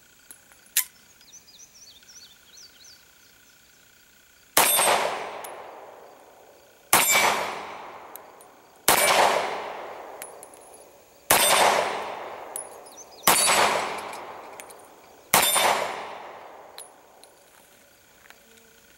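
A sharp metallic click about a second in as the pistol's slide is worked to clear a jam. Then six shots from a Benelli B-80 pistol in .30 Luger (7.65 Parabellum), about two seconds apart, each followed by a long fading ring.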